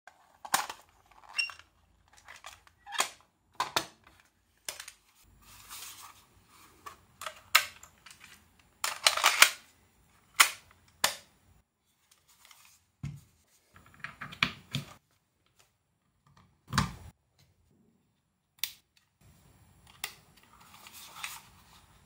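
Sharp clicks and clacks of a cassette tape and a Sony Walkman DD II being handled, with its cassette door and buttons being worked. The loudest cluster of clicks comes about nine seconds in, and a few duller knocks follow a few seconds later.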